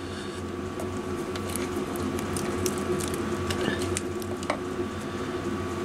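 Old, sticky electrical tape being peeled and unwound from ignition wiring: an irregular crackle of small clicks and tearing sounds over a steady low hum.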